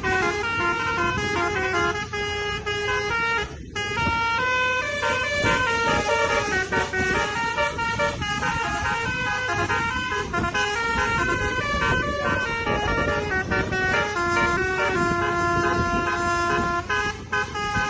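Basuri telolet horn on a tourist bus playing a melody of held notes that step up and down in pitch, with road noise underneath. The tune breaks off for a moment about four seconds in.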